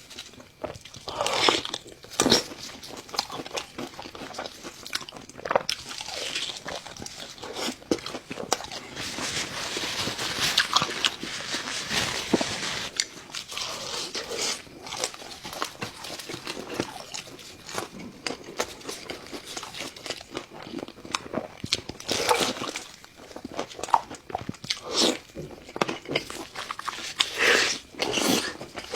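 Close-miked eating: a person biting into and chewing food, with irregular crunching bites and wet chewing.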